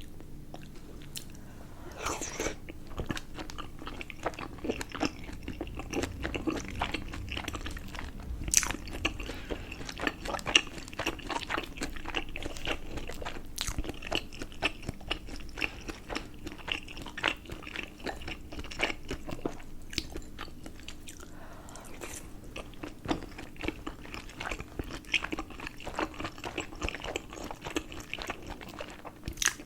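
Close-miked chewing and biting of steamed momo dumplings, with wet smacking and crunchy clicks that keep coming throughout.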